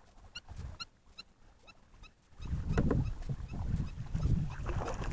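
A run of short, high chirps, about two or three a second, then from about halfway a much louder low rumble with knocks from the kayak and water while a hooked bass is reeled in alongside.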